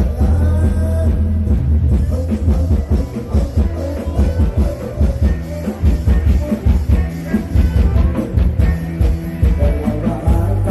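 Isan rock band playing live from a rot hae sound truck, loud and bass-heavy, with a driving drum kit.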